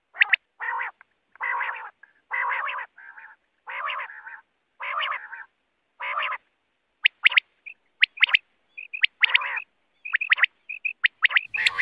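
Common quail calling: drawn-out notes of about half a second, roughly one a second, then from about seven seconds in short sharp notes in quick pairs and threes.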